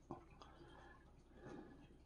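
Faint scratching and a few light clicks of a flat-blade screwdriver tip working against the rusty metal plate of an antique paint scraper.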